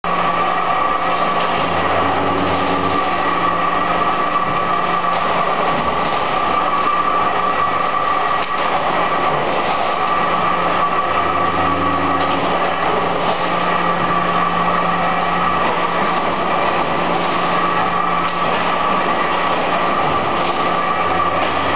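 Rows of factory production machines running together in a steady, loud din, with a constant high hum over a lower hum. About every nine to ten seconds a deeper hum comes in for about a second as a machine cycles.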